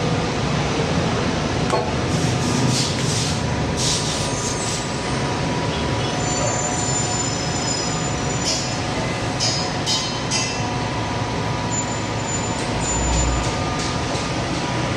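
Steady mechanical running noise with a constant hum, broken by a few brief high-pitched squeals and scrapes.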